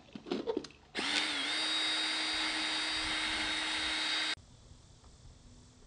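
Cordless drill boring a hole through a PVC pipe cap, running at a steady speed for about three seconds. It starts about a second in after a few light knocks and stops abruptly.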